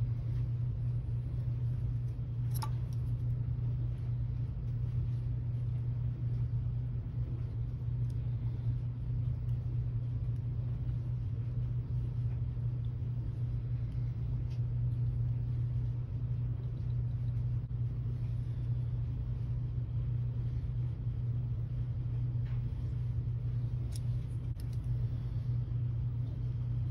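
A steady low hum throughout, with a few faint clicks of small tools being handled on the work.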